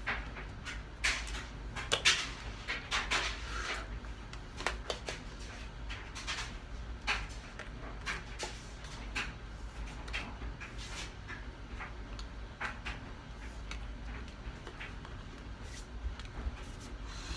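Irregular soft taps, slaps and rustles of hands and clothing from a person signing in sign language, the sharpest about one and two seconds in, over a low steady hum.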